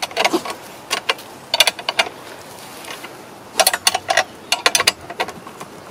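Several short runs of rapid metallic clicking as the clamp bolts holding a chainsaw on a vertical chainsaw mill bracket are tightened by hand.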